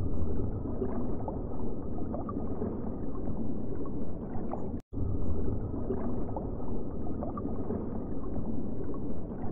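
Muffled underwater ambience: a steady low rumble and gurgle with faint crackles. It cuts out for a moment about halfway through, then starts again.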